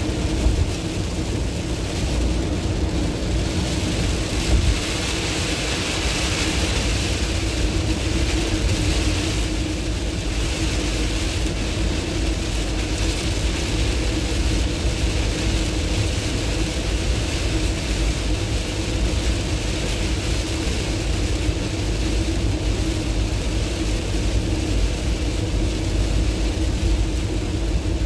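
Inside the cab of a camper van driving at motorway speed in heavy rain: a steady engine and road rumble with a low drone, under the hiss of tyre spray and rain on the windscreen.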